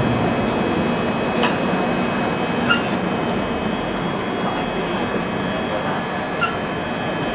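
Northern Line 1995 Stock tube train running through a tunnel, heard from inside the carriage: a steady, dense noise of wheels on rail. A few faint high wheel squeals come in the first second or so.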